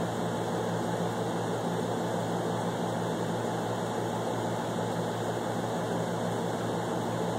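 A steady low mechanical hum with an even hiss under it. It runs unchanged, with no distinct events.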